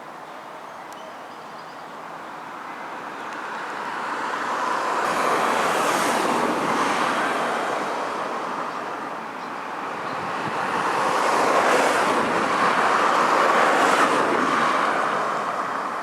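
Outdoor rushing noise that swells and fades twice, loudest about six seconds in and again from about eleven to fifteen seconds in.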